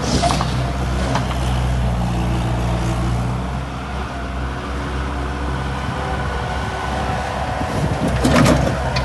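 Bobcat 863 skid steer loader's diesel engine running steadily, with a few short knocks near the start and a louder metallic clatter about eight seconds in.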